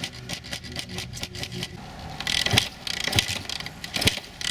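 KTM 250 SX two-stroke dirt bike being kick-started after a head gasket replacement: the engine turns over with rattling and scraping, and several sharp kicks come in the second half without it settling into a steady run.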